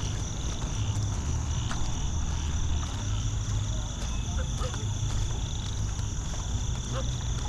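A steady high-pitched chorus of insects, crickets by their even ringing tones, over a continuous low rumble. A few faint short chirps come in the second half.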